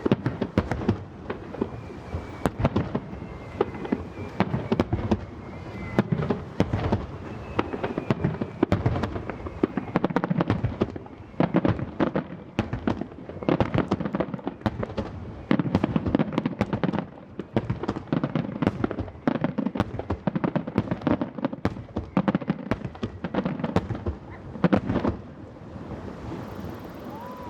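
Aerial fireworks bursting in rapid succession: dense booms and crackles with a few faint falling whistles, thinning out near the end.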